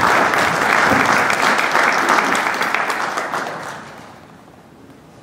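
An audience and the performers on stage applauding, a dense patter of many hands clapping that dies away about three to four seconds in.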